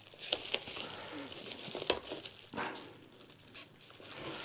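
Bubble-wrap plastic bag crinkling and crackling in irregular sharp clicks as it is held taut and cut open with a knife blade.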